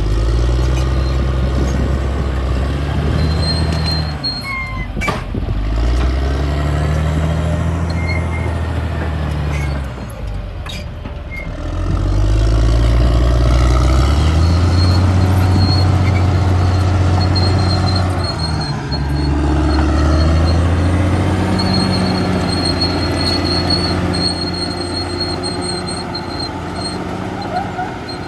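Caterpillar D6R bulldozer's diesel engine working under load, easing off twice and building back up, with a couple of sharp metallic knocks around the moments it eases off.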